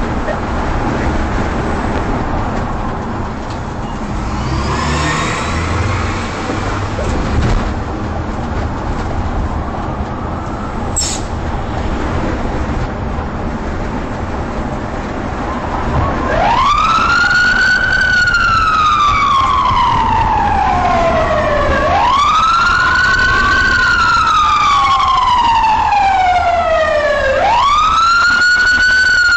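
Road and engine noise of a car driving through city traffic, then about halfway through a police siren starts to wail, louder than the road noise. Each cycle rises quickly and falls slowly, repeating about every five and a half seconds, three times.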